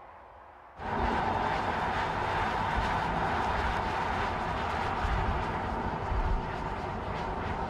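Mercedes-AMG CLS 53 driving at speed: a steady rush of road and engine noise that cuts in suddenly about a second in.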